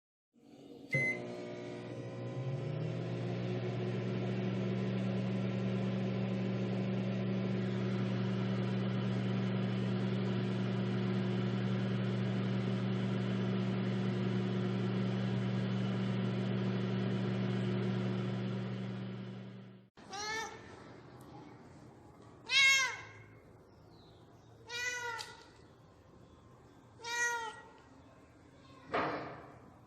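A steady electric hum starts with a click and runs for about twenty seconds, then cuts off suddenly. After it, a cat meows five times, roughly every two seconds.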